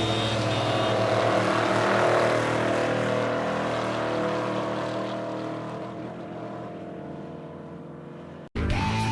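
Off-road race vehicle's engine running at speed, growing steadily fainter as it pulls away, then cut off suddenly near the end.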